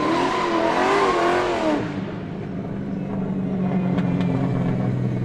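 Car engine revving up and down in quick blips, then settling into a steady idle about two seconds in.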